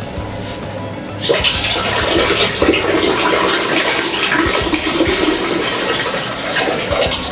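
Toilet flushing: a sudden rush of water about a second in, gurgling and running for several seconds before it eases off.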